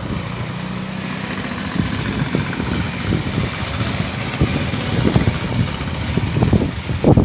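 Strong storm wind blowing in uneven gusts, buffeting the microphone with a heavy low rumble over a steady rushing hiss.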